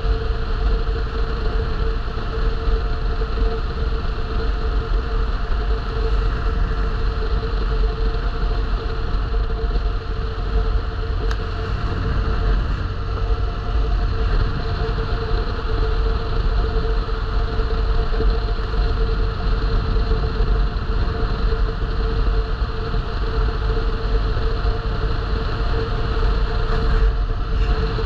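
Steady engine and road noise of a vehicle driving: a constant hum over a low rumble, unchanging throughout.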